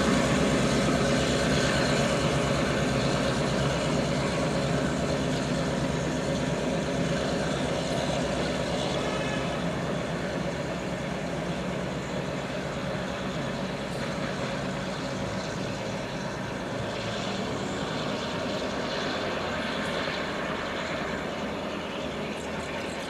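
SNCB GM-engined diesel locomotive running with a steady low throb, gradually fading.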